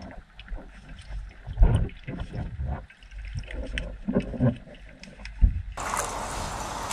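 Muffled underwater sound in a swimming pool: irregular dull knocks and thuds with some bubbling gurgle as a diver handles a submerged motorcycle and its tie-down strap. Near the end it switches suddenly to an open-air steady hiss.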